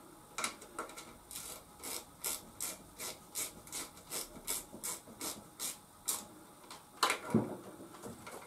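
Rhythmic scraping strokes, about three a second, stopping about six seconds in; then a single louder scrape about seven seconds in.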